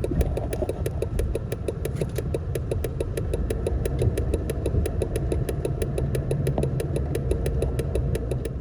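Van engine running while the turn-signal indicator ticks rapidly, several clicks a second. This is a fast-blinking turn signal (hyperflash), the sign of a burned-out turn-signal bulb.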